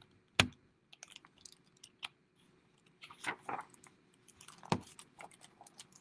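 A picture book being handled and opened, its pages rustling and crinkling, with sharp knocks about half a second in and again near five seconds.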